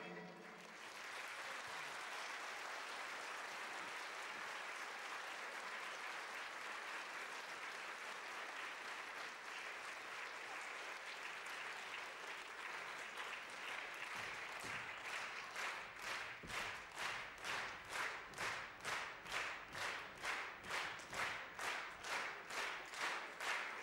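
Audience applause, which from about fifteen seconds in turns into rhythmic clapping in unison, about two claps a second.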